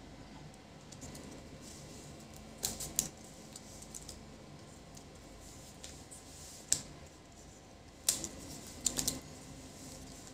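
Scattered light clicks and taps of small objects being handled: a quick cluster about two and a half seconds in, a single sharp click near seven seconds, and another cluster around eight to nine seconds.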